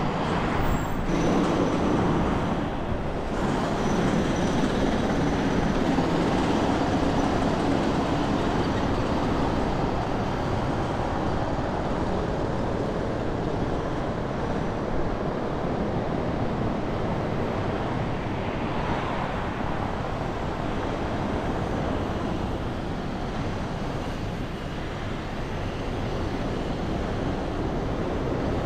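Road noise from a car driving in city traffic: a steady rumble of tyres and passing vehicles, a little louder in the first few seconds.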